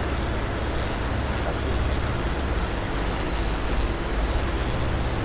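Boat's engine running steadily under way, a low hum, with the rush of the wake water behind the stern.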